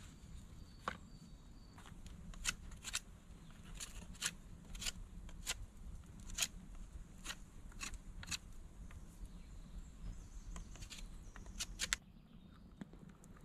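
Wood fire in a stone fireplace crackling, with sharp irregular pops about once or twice a second.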